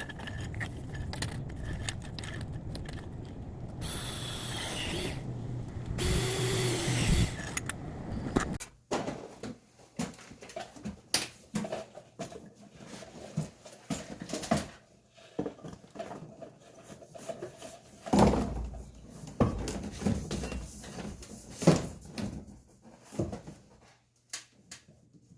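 A power tool runs steadily for about eight seconds, with two louder hissing stretches, then stops abruptly. Scattered knocks and clatters follow.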